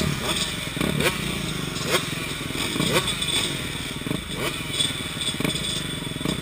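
Several off-road dirt bike engines running at low speed in a group, with short rises in engine pitch about once a second as throttles are blipped.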